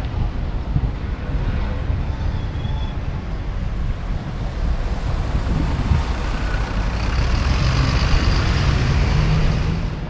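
Single-deck city bus driving past close by, its engine running over the rumble of street traffic and growing louder as it passes, then falling away at the end.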